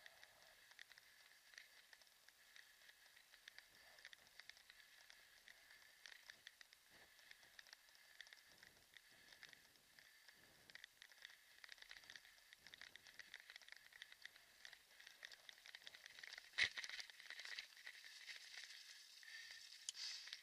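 Faint crackling and rustling of kick-scooter wheels and feet moving over a muddy dirt track, with a few soft thuds and one sharp knock about sixteen seconds in.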